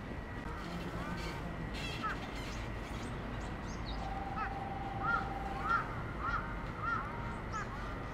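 Crows cawing: a couple of scattered calls, then about halfway through a quick run of short caws, roughly one every half second.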